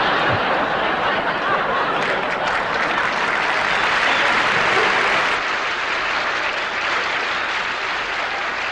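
Audience applause after a joke: a dense, steady wash of clapping that eases off a little toward the end.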